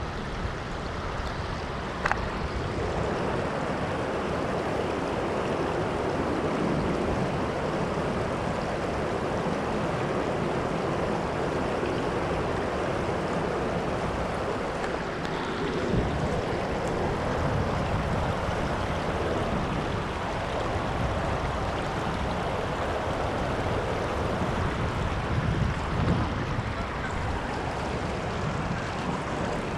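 Shallow river water rushing and gurgling over rocks, a steady wash close to the microphone, with one small click about two seconds in.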